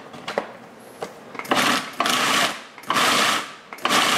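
Food processor motor pulsed in four short bursts of about half a second each, starting about a second and a half in, chopping a thick mix of beans, vegetables and oats.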